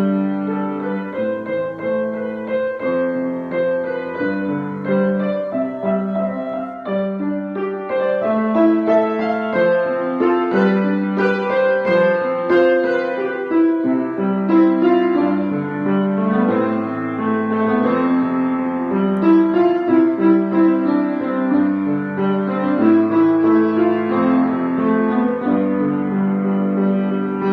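Piano playing a flowing piece of many overlapping, sustained notes at an even pace, mostly in the middle register.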